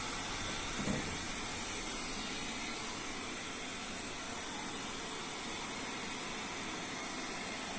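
Steady hiss of rushing air, even and unbroken, with a brighter high-pitched band on top.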